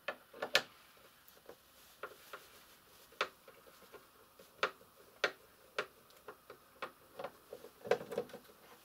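Screwdriver working screws out of the plastic underside of a Sinclair ZX Spectrum+ mock-up case: scattered sharp clicks and ticks at irregular intervals, coming closer together near the end.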